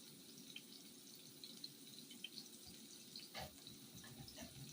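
Faint sizzle of mushrooms frying in a pan, with scattered small spits and crackles over a low steady hum, and a soft knock about three and a half seconds in.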